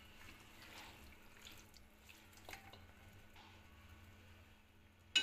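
Faint scraping and a few soft clicks of a spatula pushing food out of a frying pan onto rice, with one sharp knock at the very end.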